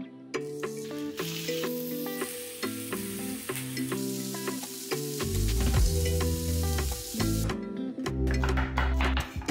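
Turkey wing pieces sizzling as they fry in hot oil in a frying pan, a steady hiss that stops about 7.5 s in, with a music track playing throughout.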